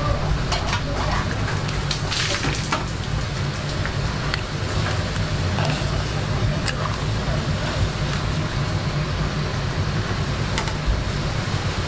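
Seafood ramen boiling in an aluminium pot over a high gas flame: a steady rumble of burner and bubbling broth, with a few light clinks as clam shells are moved about in the pot.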